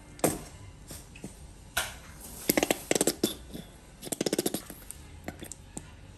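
Nearly empty plastic squeeze bottle of mayonnaise being squeezed over rice in a steel bowl, spluttering in two spells of rapid pops, about two and a half and four seconds in, with a sharp click just after the start.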